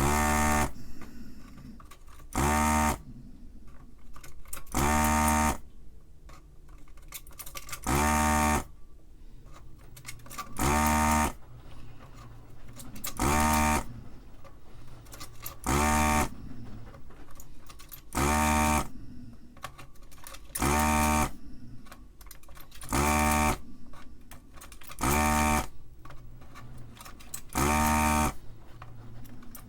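A desoldering tool's vacuum pump buzzing in short pulses of about half a second to a second, roughly every two and a half seconds, as it sucks molten solder off the ribbon cable's joints on the board.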